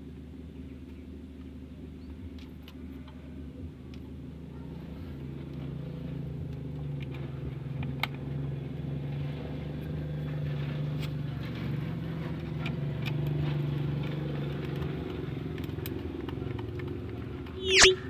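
Car engine idling with a steady low hum under the open bonnet, with small metallic clicks as a screwdriver works the adjusting screw on a snail-type car horn. A short loud burst comes near the end.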